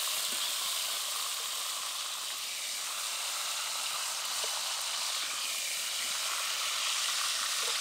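Pointed gourds (potol) frying in hot mustard oil in a kadai, a steady, even sizzle.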